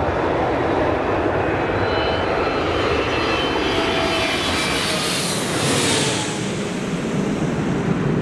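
Boeing 757-200 cargo jet passing low overhead on landing approach: the steady noise of its two Rolls-Royce RB211-535E4B turbofans, with a high whine that builds and then slides down in pitch as it goes over, about six seconds in.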